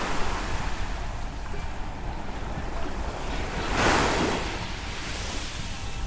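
Small waves breaking and washing up the sand at the shoreline, with one louder wash about four seconds in. Wind rumbles steadily on the microphone underneath.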